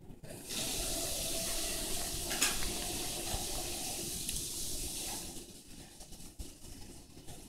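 Running water: a steady rushing hiss that starts just after the beginning and fades out about five seconds in.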